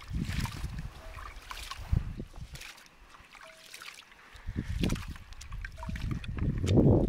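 Rice being washed by hand in a plastic basin of water: the grains are rubbed and swished, and the water sloshes in irregular bursts, loudest near the end.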